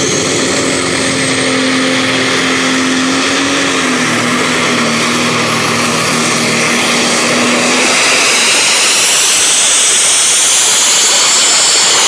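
Pro Stock pulling tractor's turbocharged diesel engine running flat out under load, with a high turbo whine over it that climbs in pitch in the last few seconds.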